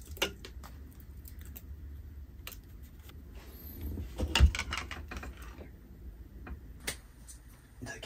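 Metal spoon clinking and scraping against a small soup bowl while stirring miso into soup, a scatter of light clicks with a heavier knock about four and a half seconds in.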